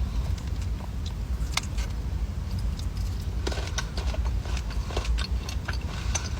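Close-miked eating: scattered crisp cracks and clicks of a hard-shelled pastry being bitten and chewed, over a steady low rumble.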